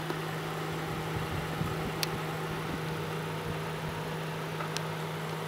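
Both electric cooling fans of a 1990 Honda Accord running with a steady hum, switched on by a paper clip bridging the fan switch plug: this bypasses the fan switch and shows that the fans, relays and fuses work.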